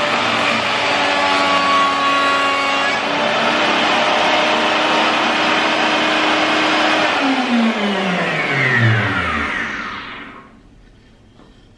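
Lombarte MR40V table router's 1500 W motor running at full speed with a profile bit, cutting the edge of a pine board near the start. About seven seconds in it is switched off and its whine falls steadily in pitch as it spins down, dying out about ten seconds in.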